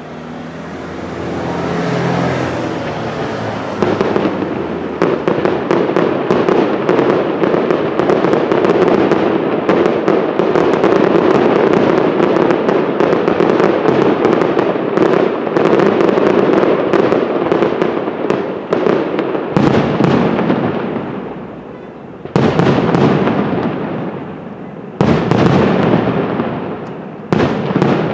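Aerial fireworks display: a dense, continuous run of rapid crackling bangs builds up a few seconds in and goes on for about fifteen seconds. Near the end it breaks into three separate volleys of crackling bangs, each starting suddenly and dying away.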